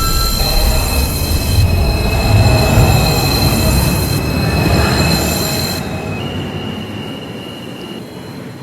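New York City subway 4 train pulling out of the station: a loud rumble of wheels on the rails with high, steady squealing tones. The rumble and squeal fade away over the last few seconds as the train leaves.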